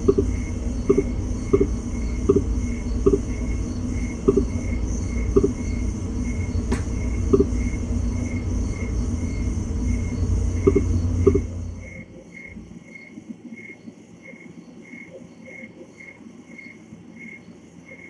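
A steady low hum with a faint high chirp repeating about twice a second; the hum drops away about two-thirds of the way through, leaving the chirping.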